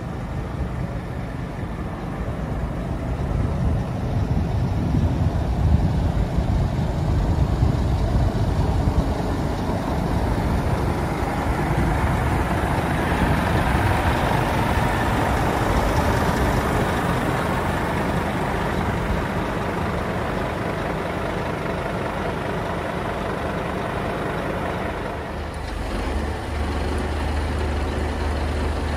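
Diesel engine of a Scania G360 truck idling steadily, with wind rumbling on the microphone.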